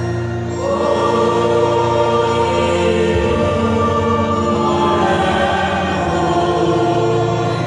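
Congregation singing a hymn together over sustained instrumental chords; the voices swell in louder about half a second in.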